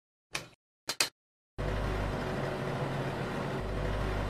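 A few sharp clicks as the countertop oven's timer dial is turned, then the oven starts up with a steady electric hum.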